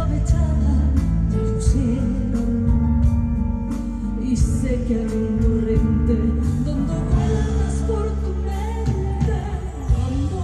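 A woman singing live into a microphone over a full band, with hand percussion such as congas keeping a steady beat.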